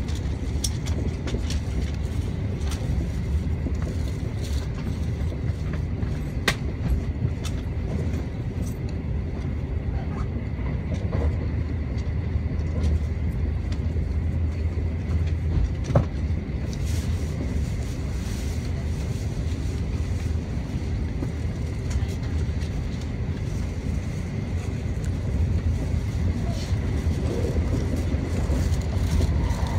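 N700A Shinkansen running at speed, heard inside the passenger cabin: a steady low rumble, with a few faint clicks.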